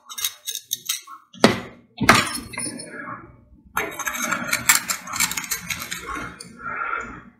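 Broken pieces of a glazed ceramic bowl clicking and scraping against each other as they are pressed together along an epoxy-coated break. Two sharper clinks come in the first two seconds, then a run of small rapid clicks and scrapes.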